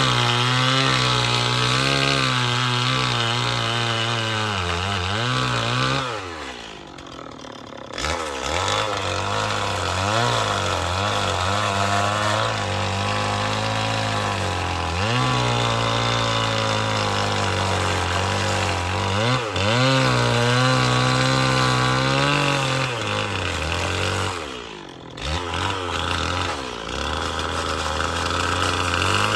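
Stihl chainsaw cutting through a pine log, its engine speed rising and falling under load. It eases off twice, around six seconds in and again near the end, before cutting on.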